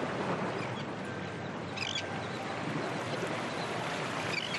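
Steady rushing beach ambience, with short high bird calls about two seconds in and again near the end.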